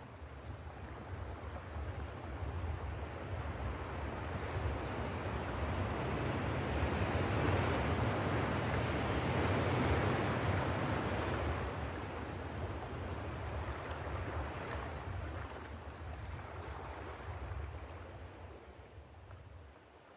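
Rushing sound of sea surf, swelling to its loudest about halfway and fading away near the end.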